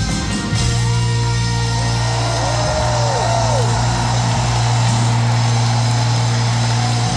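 Live rock band holding a loud sustained low chord at the close of a song, with several notes gliding up and down in pitch above it for the first few seconds, over the noise of a stadium crowd.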